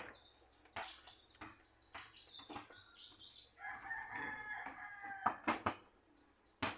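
A rooster crowing once, one long call of about a second and a half in the middle, among several sharp clicks and knocks.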